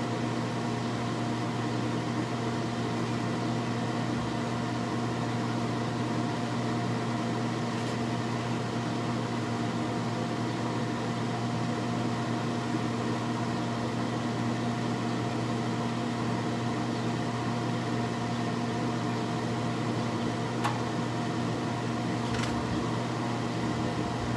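Pit Boss vertical pellet smoker's motors humming steadily during start-up while the fire pot lights, with a couple of faint ticks near the end.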